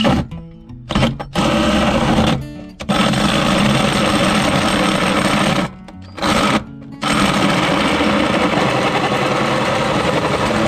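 Drill driving a hole saw through the van's sheet-steel floor, the teeth chattering as they cut. It runs in bursts, stopping briefly twice.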